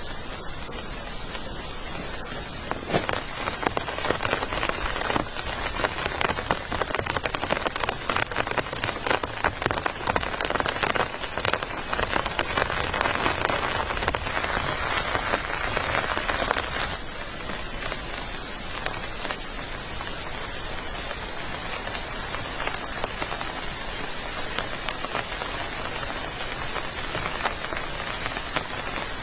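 Heavy rain falling on a surface, a dense spatter of drops that eases a little after about seventeen seconds.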